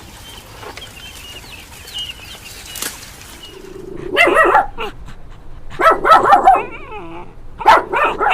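Dog barking in three short bursts of several barks each, starting about halfway through, over faint high chirping in the first half.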